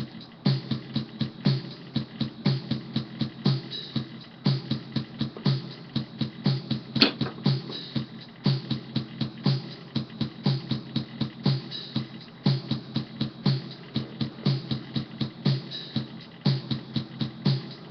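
Electronic keyboard's built-in pop rhythm pattern, a drum-machine beat playing steadily.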